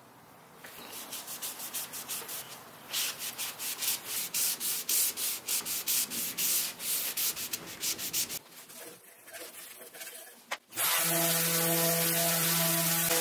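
Hand-sanding Baltic birch plywood with a small folded piece of sandpaper: quick scratchy rubbing strokes, about three a second, louder from about three seconds in and softer later. Music with held tones comes in near the end.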